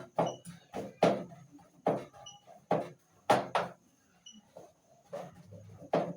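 Boiled potatoes and maize being mashed in a cooking pot: repeated irregular thuds of the masher striking the food and pot, some in quick pairs, easing off briefly about four seconds in.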